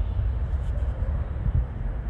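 Distant jet airliner taking off and climbing away: a steady low engine rumble, mixed with wind buffeting the microphone.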